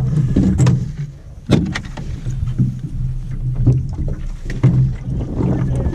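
Outboard motor running at low trolling speed under an aluminum fishing boat, a steady low hum, with a few sharp knocks on the boat about a second and a half in and again near the end.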